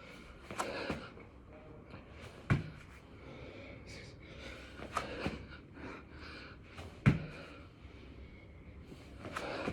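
A man breathing hard, in heavy puffs and gasps, through a set of six-count burpees, with three sharp thuds a couple of seconds apart as he hits the floor.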